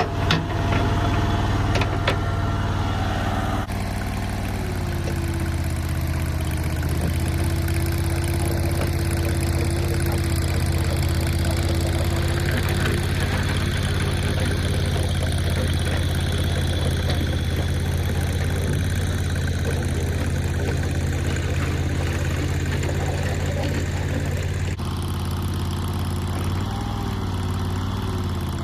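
Mini skid steer's engine running steadily while it works, its note changing about four seconds in and again near the end. A few short knocks sound in the first two seconds.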